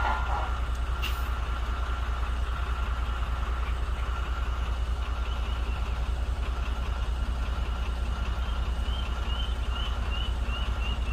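Heavy diesel truck engine running with a steady low throb, with faint repeated high chirps over it in the second half.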